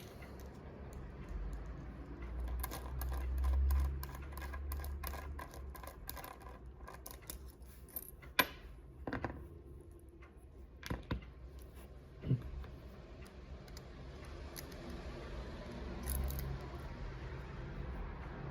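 Small metal clicks, taps and scrapes of a high-security lock cylinder being handled and taken apart to reach its sidebar. A few sharper single clicks stand out between about eight and twelve seconds in, with low handling bumps now and then.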